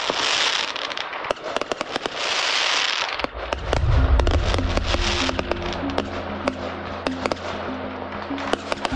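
Consumer fireworks going off: dense crackling pops and bursts of hiss, with a deeper boom about four seconds in. Background music with a low stepping tone comes in during the second half.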